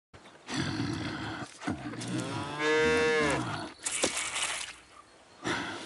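Cow mooing in long calls, the second one rising and then falling in pitch. About four seconds in comes a short hissing squirt of milk from the udder.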